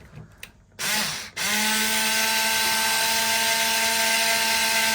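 Power drill-driver running to drive in the lock's mounting screws: a brief spurt about a second in, then a steady, even-pitched motor whine for about four seconds.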